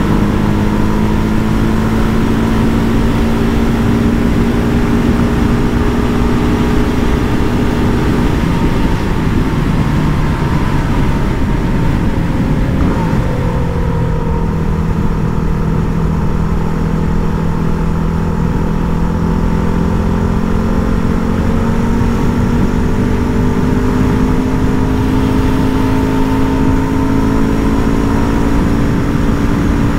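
Yamaha WR250R's 250 cc single-cylinder four-stroke engine running at road speed, heard through a helmet-mounted mic with steady wind rush. The engine note drops about eight seconds in, then climbs slowly again over the last several seconds as the throttle is opened.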